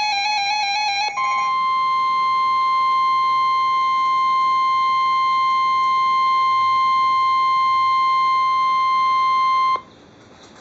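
NOAA Weather Radio Emergency Alert System broadcast: about a second of the buzzy, warbling SAME digital header burst, then the steady single-pitch Warning Alarm Tone held for nearly nine seconds, cutting off suddenly near the end into faint radio hiss. The alarm tone signals that a warning, here a severe thunderstorm warning, is about to be read.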